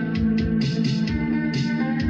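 Music with a beat playing through a single-ended tube amplifier built on 6S4S directly heated triodes, driving a pair of small loudspeakers, turned up somewhat.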